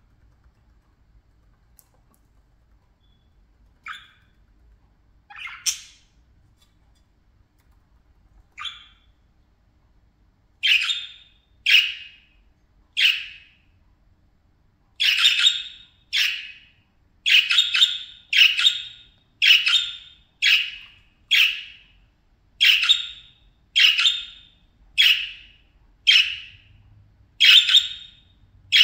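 Pet budgerigars (budgies) calling: short, sharp calls, a few scattered ones at first, then a steady run of about one call a second from about a third of the way in.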